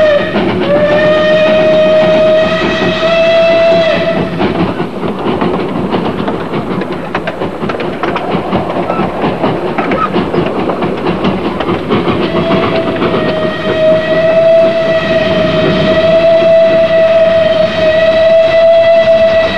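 Narrow-gauge steam locomotive's whistle blowing long steady blasts on one note: one until about four seconds in, and another from about twelve seconds in. In between, the train rattles along the track.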